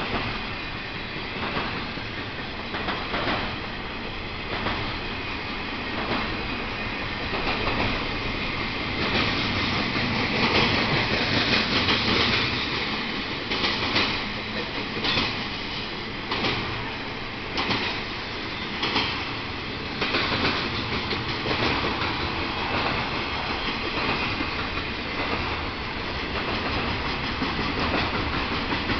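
Florida East Coast freight train's loaded intermodal flatcars rolling past close by: a steady rumble of steel wheels on rail with irregular clacks as wheels cross rail joints, loudest and busiest around the middle.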